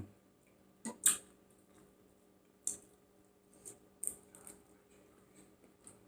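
Close-up eating sounds: a handful of short, wet clicks and smacks from chewing, spread out, with the loudest about a second in.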